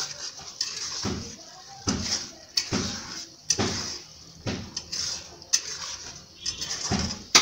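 A spatula scrapes and stirs around a kadai, about once a second, as a spice paste fries down with a steady sizzle.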